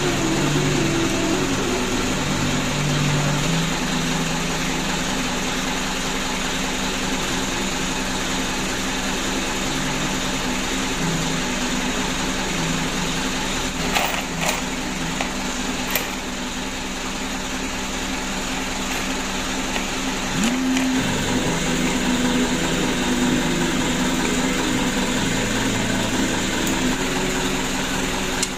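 Steady mechanical drone in the background, with a few light metal clicks about halfway through as turbo cartridge parts are handled.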